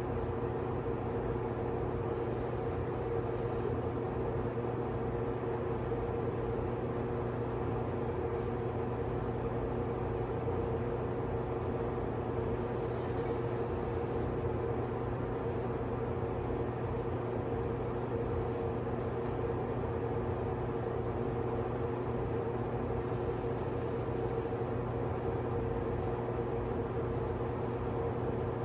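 A steady machine hum with a few constant tones over a low rumble, unchanging throughout.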